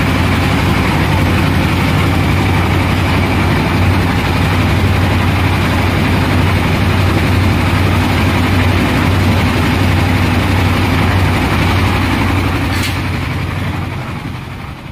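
Stationary diesel engine of a lift-mixer machine running steadily under load, driving the construction lift that hoists a loaded bucket up the tower. A single sharp click about 13 seconds in, and the sound fades near the end.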